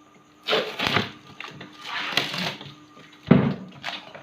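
Tape being pulled off a plastic speaker-amplifier housing in two rasping pulls, then a sharp knock of plastic being handled a little after three seconds in.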